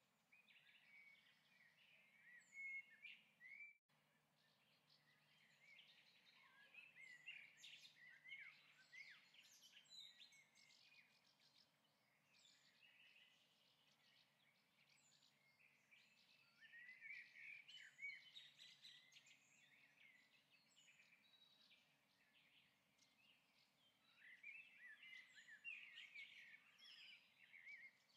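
Faint birdsong: bouts of chirping and twittering come and go, busiest about a third of the way in, around two-thirds, and near the end, over a faint low hum. All sound drops out for an instant about four seconds in.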